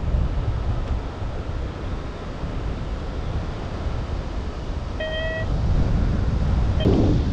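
Wind buffeting the microphone in flight under a paraglider, a steady low rumble that swells toward the end. A single short beep sounds about five seconds in.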